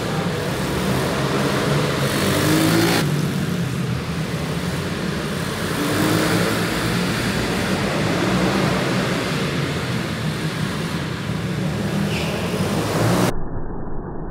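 Pit bike engines running and revving, the pitch rising as the bikes accelerate, with a few abrupt changes where clips are cut together.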